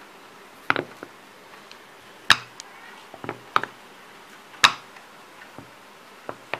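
A steel cup rim pressing rounds out of thinly rolled dough on a rolling board: a series of short, sharp clicks and taps at irregular intervals, the loudest about two seconds in and again halfway through.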